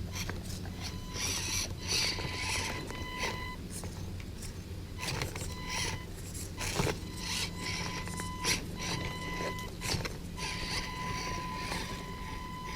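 Axial SCX24 Deadbolt 1/24-scale RC crawler driving over rocks: its small electric motor and gears whine in spells as the throttle comes on and off, with scattered clicks and scrapes from the tyres and chassis on stone.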